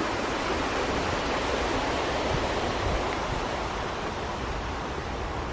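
Wind outdoors: a steady rushing hiss with an uneven low buffeting of wind on the microphone.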